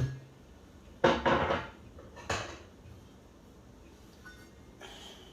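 Pots and pans clattering as they are handled and moved about: a knock, then a louder run of several clanks about a second in, another knock shortly after, and a faint one near the end.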